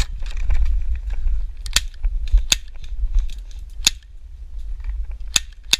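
Airsoft guns firing single shots: about five sharp snapping clicks at irregular spacing, over a steady low rumble.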